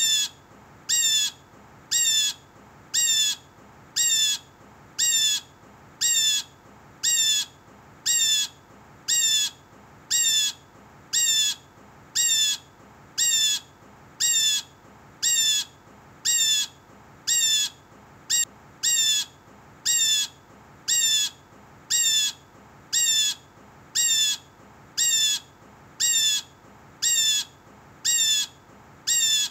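Blue jay giving its harsh, squawking jay call over and over. The calls come evenly, about once a second, and each one drops in pitch.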